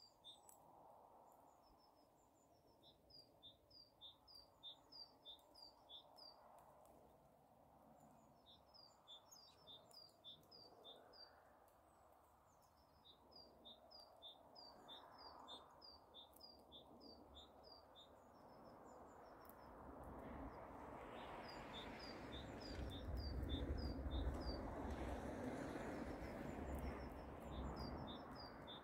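A small songbird repeating a high two-note chirp about four to five times a second, in phrases of a few seconds with short pauses between them. In the second half a low rushing noise swells up and becomes the loudest sound, then eases off near the end.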